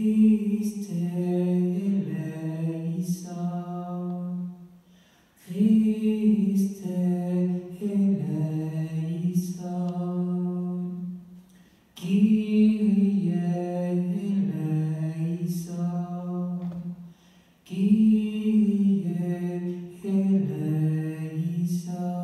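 A man singing a liturgical chant alone, without accompaniment, in four long phrases with short breaths between them.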